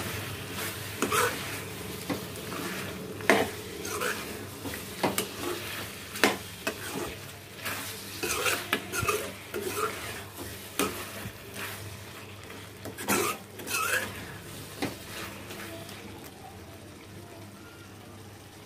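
A spatula stirring and scraping chunks of chicken masala around a kadai, with irregular scrapes and knocks against the pan over the sizzle of the curry frying in oil. The stirring thins out over the last few seconds.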